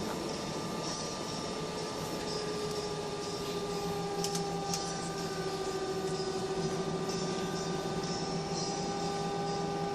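Aircraft engine drone heard inside the passenger cabin around takeoff: a steady noise with a few held tones that sag slightly in pitch a few seconds in.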